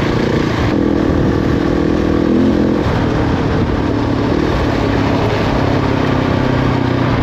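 Husqvarna 701's single-cylinder engine running under load as the motorcycle rides through soft sand, its revs changing a couple of seconds in and then holding at a lower steady note.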